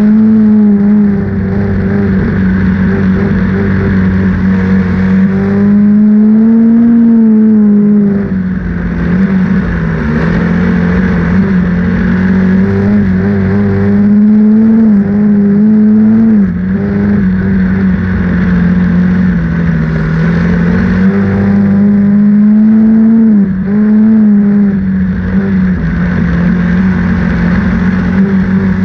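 Ford Focus midget race car's four-cylinder engine at racing speed, heard from on board. The engine note climbs under full throttle and dips briefly every several seconds as the throttle comes off for the turns and goes back on.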